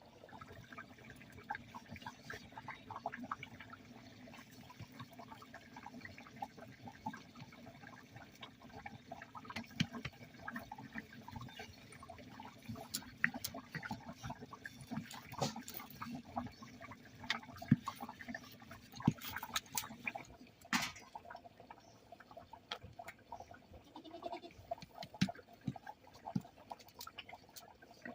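Kitchen cooking sounds: many irregular small clicks, taps and occasional knocks over a low, steady liquid-like murmur.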